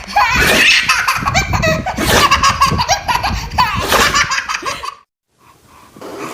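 A baby laughing, the laughter breaking off about five seconds in.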